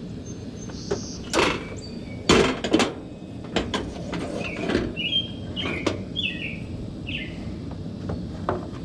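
A cast iron griddle clanks several times as it is set down and shifted on the steel grate of a Coleman two-burner propane stove, loudest about two and a half seconds in. Birds chirp in the background.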